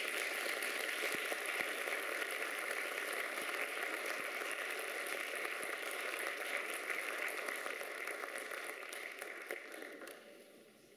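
Audience applauding steadily after the music stops, dying away near the end.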